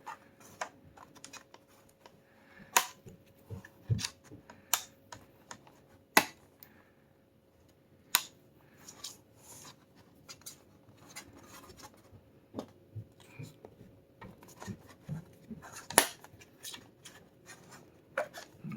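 Plastic laptop bottom panel being pried off: scraping along the seam and a series of sharp snaps and clicks as the retaining clips let go, the loudest about 3, 4, 5, 6, 8 and 16 seconds in.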